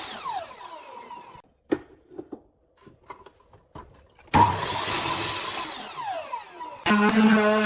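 Handheld power tool spinning down after a short burst, its pitch falling, then a few knocks and clicks of work on wood. About four and a half seconds in it is triggered again and winds down. Near the end it starts running steadily at an even pitch.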